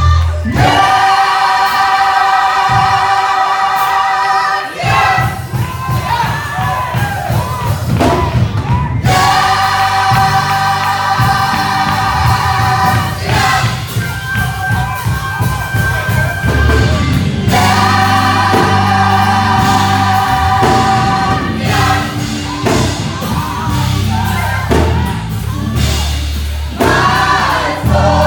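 Gospel choir singing, holding three long sustained chords in turn, over rhythmic instrumental accompaniment.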